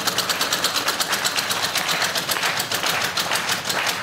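Game-show prize wheel spinning: its metal pegs strike the pointer flapper in a rapid, even ticking of about ten clicks a second, slowing slightly as the wheel loses speed.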